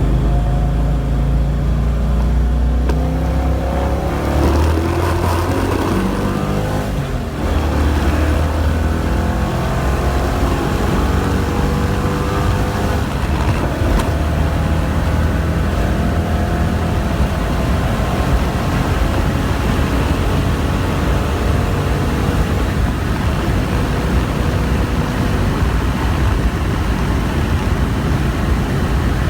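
Car engine heard from inside the cabin, accelerating hard through the gears of a manual gearbox. Its pitch climbs, drops at a gear change about seven seconds in, and climbs again. It then settles into a steadier run with road noise.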